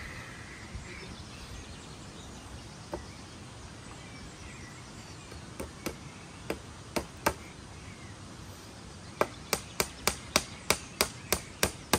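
Hammer blows: a single strike, then a few scattered ones, then a steady run of about three strikes a second near the end, as in driving nails during building work.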